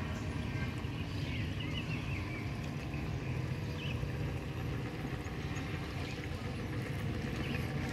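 Radio-controlled model boat running at speed across open water, its motor heard as a steady low hum with no change in pitch.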